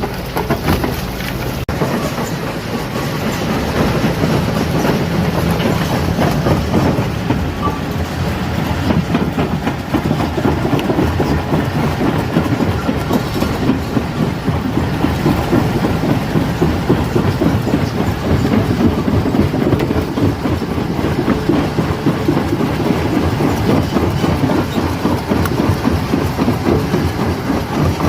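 Stone crusher running under load, breaking rocks: a steady heavy rumble with a dense, irregular clatter of rock on steel.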